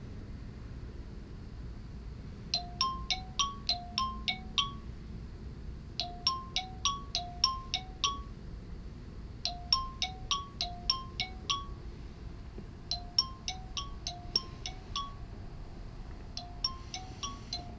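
Smartphone sounding a repeating chime tone, the kind used for an alarm or ringtone: runs of about eight quick bell-like notes alternating between two pitches, repeated about every three and a half seconds, starting about two and a half seconds in.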